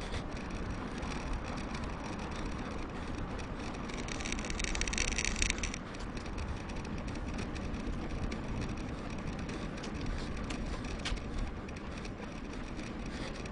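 Mountain-bike riding noise: steady wind and tyre rumble, with a louder hiss from about four to six seconds in.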